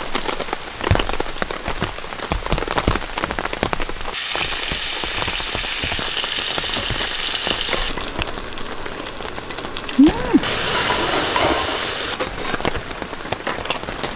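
Rain pattering on a tarp overhead, heard as many separate drops. From about four to twelve seconds a brighter, steady hiss takes over: meat sizzling in a frying pan. A short squeak comes about ten seconds in.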